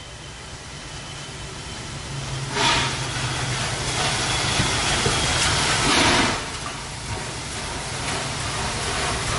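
Norfolk and Western 611, a class J 4-8-4 steam locomotive, moving slowly with its train: a steady hiss of steam over a low rumble that grows louder, with two louder puffs of steam about three and a half seconds apart.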